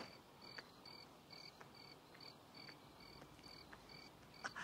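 Crickets chirping faintly and evenly, about two short chirps a second, over near silence, with a few soft taps.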